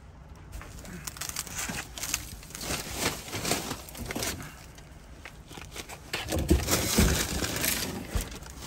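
Plastic trash bags rustling and crinkling as they are pulled and pushed aside by hand, growing louder near the end with a couple of dull thumps.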